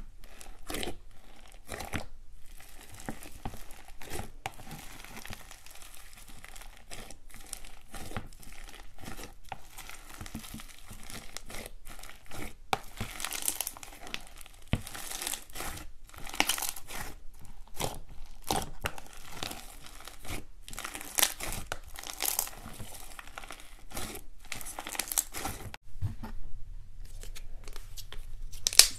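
Hands squishing and kneading fluffy slime packed with foam beads: dense, irregular crackling and popping. A few sharper cracks come near the end.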